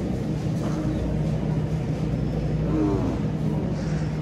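Supermarket ambience: a steady low hum over a dense rumbling background noise.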